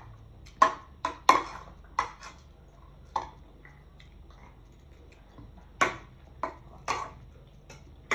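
Metal spoons clinking and scraping against ceramic bowls of rice, a string of sharp clinks at uneven intervals: several in the first two seconds, one about three seconds in, and another cluster around six to seven seconds.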